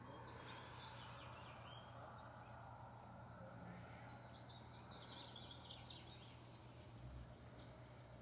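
Quiet outdoor ambience with a steady low hum and faint bird chirps in two short flurries, one near the start and one around the middle.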